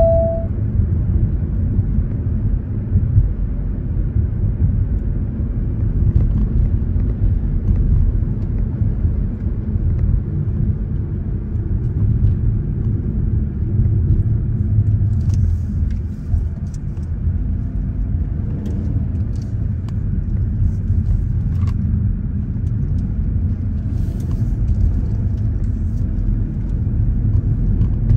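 Car driving on city streets, heard from inside the cabin: a steady low rumble of engine and tyres on the road, with a few faint ticks.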